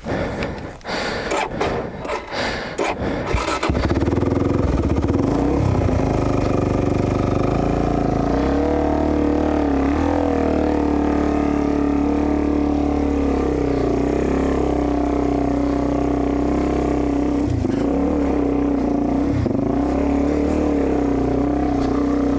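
A few seconds of knocking and scraping, then a dirt bike engine running steadily at an even pitch.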